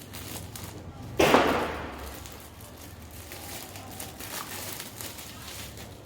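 Parcel packaging being handled and opened: a sudden loud rush of rustling noise about a second in that fades over about half a second, then light rustles and small clicks.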